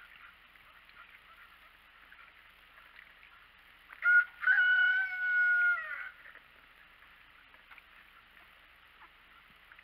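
A rooster crows once about four seconds in: a short opening note, then a long, level held note lasting about a second and a half.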